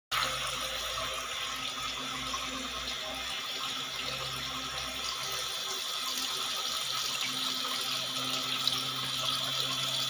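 Several thin streams of water falling from a perforated pipe into a shallow glass tank, splashing steadily, with a low steady hum underneath.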